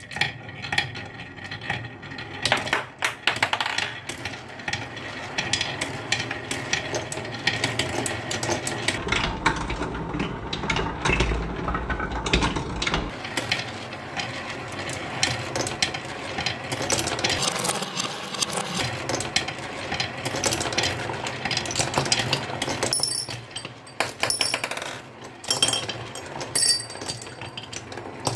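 Many small hard balls clattering and clicking continuously, like marbles running down a marble-run track, with a dense stream of sharp clinks.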